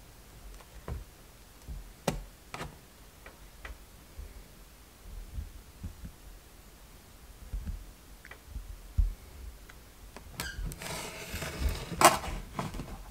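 Scattered faint clicks and light creaks while the glued foam board panel is held still. About ten seconds in, a rubbing, scraping rustle of foam board as the box is gripped and shifted, with a sharp knock near the end.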